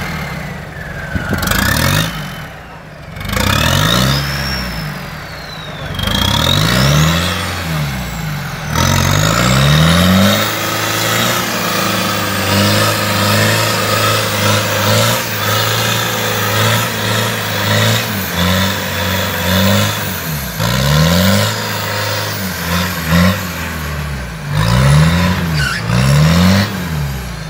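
Toyota Land Cruiser 70-series engine revved hard over and over, rising and falling, with a long spell held at high revs in the middle, as the truck spins its wheels in mud on a steep forest track. Its front drive has failed, so only the rear wheels are driving.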